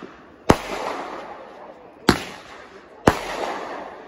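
Consumer aerial fireworks bursting overhead: three loud bangs, the second about a second and a half after the first and the third a second later, each trailing off over about a second.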